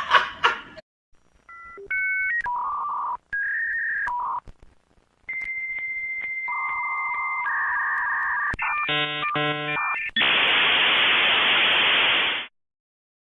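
Dial-up modem connecting over a phone line: a run of touch-tone dialing beeps, then a long steady high answer tone joined by lower tones, a short buzzing burst of handshake tones, and about two seconds of harsh hiss that cuts off suddenly.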